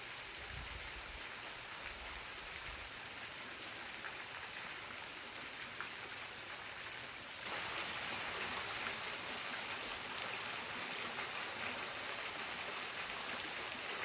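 Mountain waterfall and stream rushing steadily. About halfway through, the rush becomes louder and brighter.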